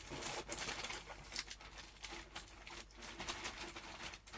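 Wrapping paper crinkling and rustling in many quick crackles as it is folded into pleats by hand.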